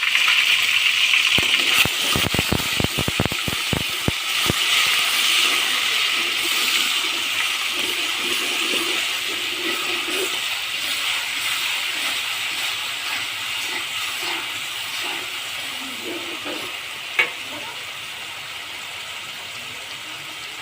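Hot cooking oil sizzling in a pan, loud at first and slowly dying down. A quick run of sharp crackles comes in the first few seconds, and a single sharp click follows near the end.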